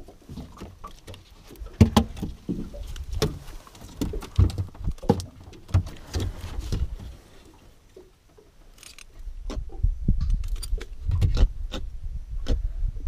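A small trevally flapping and slapping on the carpeted deck of an aluminium boat: irregular taps and thumps, quieter for a moment about eight seconds in.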